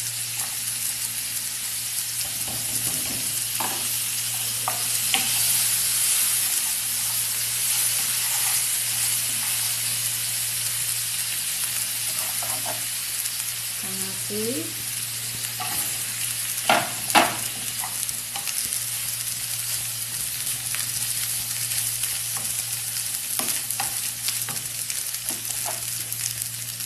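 Rice and seasonings sizzling in hot oil in a frying pan while a wooden spatula stirs and scrapes, with scattered knocks and two sharp ones about halfway through. A steady low hum runs underneath.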